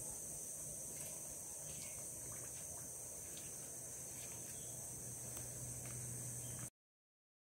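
Steady high-pitched insect chorus with a few faint ticks, cutting off abruptly near the end.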